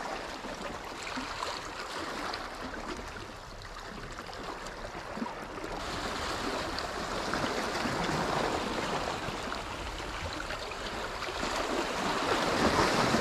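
Small sea waves washing in over shoreline rocks and splashing between them, the wash swelling and easing, louder in the second half.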